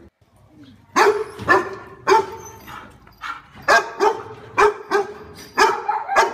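A dog barking over and over: about nine sharp barks, some in quick pairs, with a pause of a second or so near the middle.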